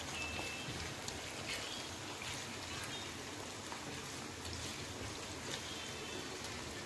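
Sliced onions and tomatoes sizzling steadily in hot oil in a wok as they are stirred with a wooden spatula, with a few faint clicks.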